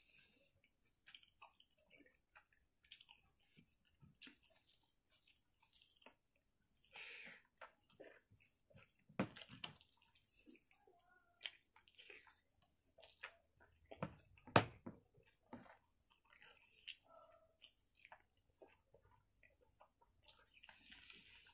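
Close-miked eating sounds: wet chewing and lip smacks of a mouthful of rice and curry, with scattered sharp clicks and squishes. The loudest come about nine and fourteen seconds in. Fingers squeeze rice against the plate in between.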